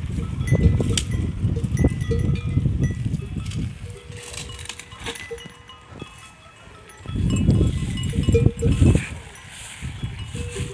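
Livestock bells clinking lightly as a herd grazes, under loud low rumbling noise for the first few seconds and again past the middle.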